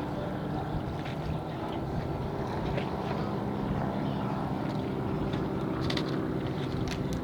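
Boat engine running, a steady low hum, with a few short clicks near the end.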